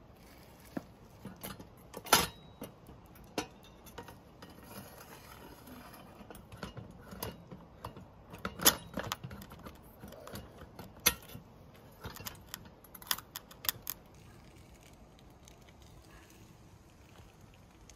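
Scattered metal clicks and clanks as a chainsaw's bar and chain are slid into and positioned in the chainsaw mill's steel bar clamp by hand, with two louder knocks about two seconds in and near the middle. The handling dies down over the last few seconds.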